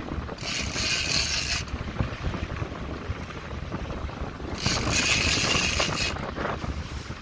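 A big-game trolling reel buzzing in two bursts, each a second or so long and about four seconds apart, as line works under the load of a hooked marlin. Under it runs a boat engine's low rumble, with wind on the microphone.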